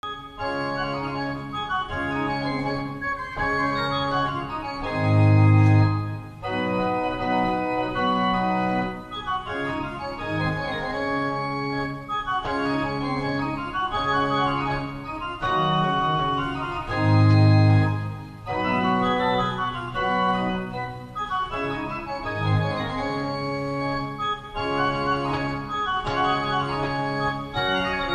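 Restored eighteenth-century pipe organ playing a piece of music in sustained chords. Deep, loud bass notes swell twice, about five seconds in and again past the middle.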